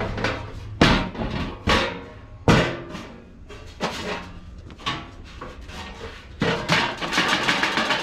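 Sheet-metal HVAC blower housing being handled, wiped out with a rag and turned over on a wooden deck: a series of knocks and clanks, the two loudest about a second and two and a half seconds in, some ringing briefly. A dense stretch of clattering and scraping near the end.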